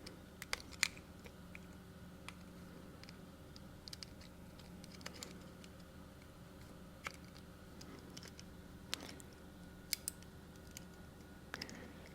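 Faint, scattered clicks and light scrapes of plastic and metal parts as the aluminium printhead plate is worked back onto its spring-loaded plastic bracket by hand. A steady low hum runs underneath.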